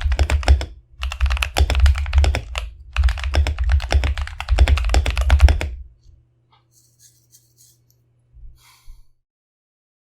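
Fast typing on an RK61 mechanical keyboard with lubed Akko Ocean Blue tactile switches, PBT keycaps and a foam-dampened case: dense keystrokes in bursts with short pauses. The typing stops about six seconds in, with a few faint clicks near the end.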